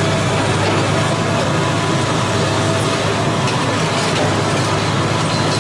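Steady mechanical noise of a demolition site, led by the diesel engine of a long-reach demolition excavator running without pause, with a low hum and a few faint clicks.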